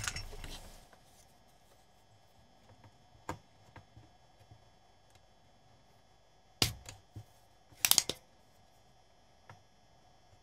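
Spring-loaded desoldering pump (solder sucker) clicking as it is cocked and fired to pull solder from a capacitor's leads on a circuit board. There are a few sharp snaps: one on its own about a third of the way in, a stronger one two-thirds in, then a quick cluster just after.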